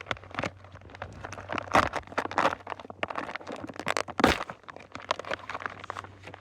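Thick plastic MRE pouch being opened and its packets handled: irregular crinkling and crackling, with a louder rustle about two seconds in and a sharp crackle a little after four seconds.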